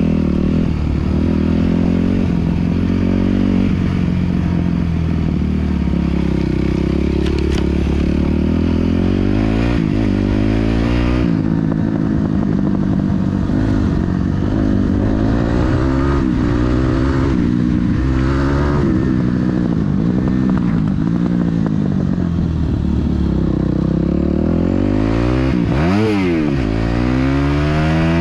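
Yamaha YZ250F dirt bike's single-cylinder four-stroke engine, close to the rider, under way with the throttle opening and closing so the engine note climbs and falls over and over. Near the end it drops sharply and climbs again.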